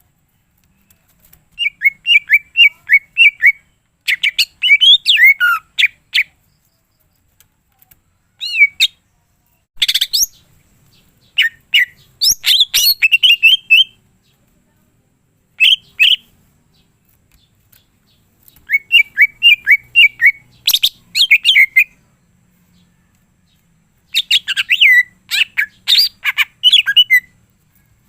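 Green leafbird (cucak ijo) singing loudly in bursts of quick, varied chirps and whistles, each phrase one to three seconds long with short pauses between. The song is full of imitated phrases of other birds.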